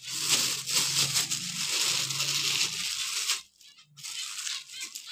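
Close rustling and crinkling, like plastic being handled near the microphone, with a brief silent gap about three and a half seconds in.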